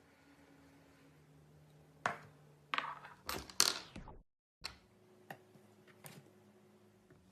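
Sharp clicks and crackles of objects being handled, clustered about two to four seconds in, then a few isolated clicks, over a faint steady hum; the sound cuts out completely for a moment just after four seconds.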